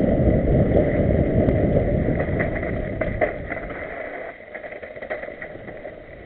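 Onboard ride noise from riding fast down a rough dirt trail: a heavy rumble of wind and jolting on the camera's microphone with scattered rattles and knocks. It dies down about four seconds in.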